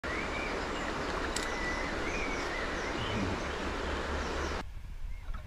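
Steady rush of flowing river water over a shallow riffle, with a low rumble and birds chirping. The rush drops away sharply about four and a half seconds in.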